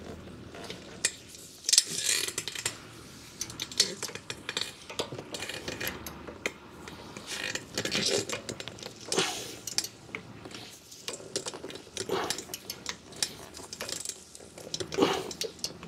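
Ratcheting torque wrench clicking in irregular spurts as it tightens a brake caliper bracket bolt toward its 148 ft-lb setting, with light metal clinks of tools in between.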